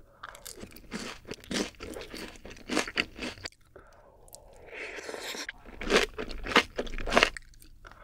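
Close-miked crunching and chewing of sweet-sauced Korean fried chicken and kimchi. Crisp crunches come in a run over the first three seconds, then after a short pause there is softer chewing, and a few loud crunches near the end.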